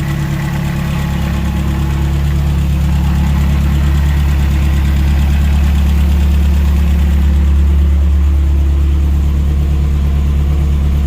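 Toyota 22RE 2.4-litre four-cylinder engine idling steadily on propane through a conversion mixer.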